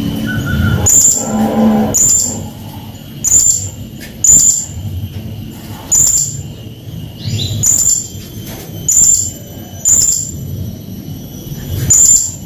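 Blue-crowned hanging parrot (srindit) calling over and over: short, sharp, very high-pitched notes, roughly one a second, about a dozen in all.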